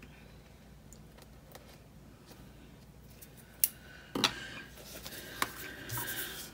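Quiet handling of paper planner stickers and small craft tools, with a sharp click about three and a half seconds in and a few more clicks and rustles after it.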